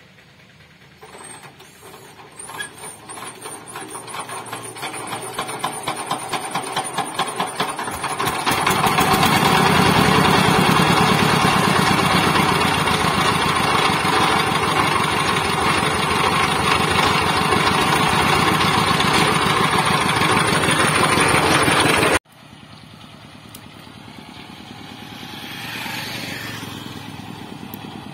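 Changfa 1115 single-cylinder diesel engine of a motor van being started: quickening chuffs grow louder for about seven seconds until it catches and runs loud and steady. About 22 seconds in the sound cuts abruptly to a quieter engine running farther off, swelling briefly near the end.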